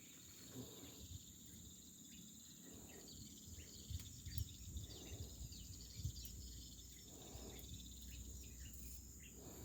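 Faint outdoor ambience: a steady high insect drone with scattered small bird chirps and a few low bumps.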